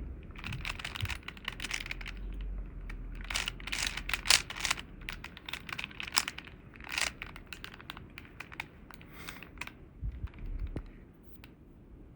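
Rubik's Cube being turned by hand, its plastic layers clicking and rattling in quick runs of turns. The turning thins out near the end.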